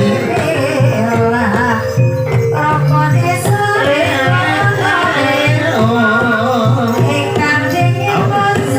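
Gamelan music for an ebeg hobby-horse dance: a singer's wavering melody over steady pitched instruments and a hand drum beating regularly.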